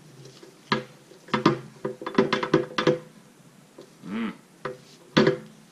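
Stainless steel exhaust header pipe knocking and clinking against a table while heat wrap is wound onto it: a run of sharp taps and knocks, each with a short metallic ring.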